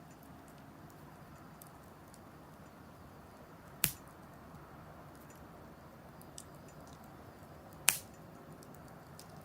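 Wood fire crackling softly in a fire-pit stand, with scattered faint ticks and two sharp pops about four seconds apart.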